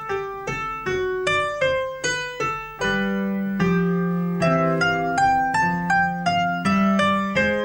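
Piano played slowly: a melody of single struck notes, each fading away, about three a second. Lower, longer-held notes join underneath about three seconds in.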